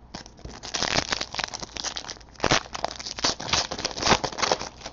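Basketball trading-card packs and cards being handled: crinkling and tearing of pack wrappers with quick rustles and snaps of cards.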